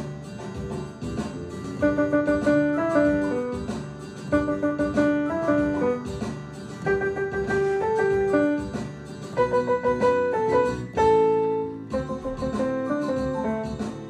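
Instrumental background music: a quick melody of short notes, with one longer held note about eleven seconds in and a brief pause just after.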